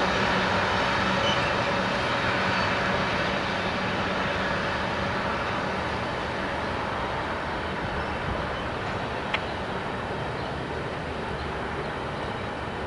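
Norfolk Southern freight train rolling past, a steady rumbling noise that slowly fades as it moves away, with a single sharp click about nine seconds in.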